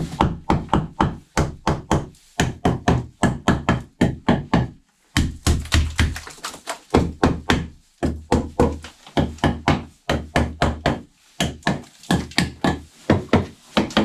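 Rapid blows on wood, about four a second, in runs broken by short pauses.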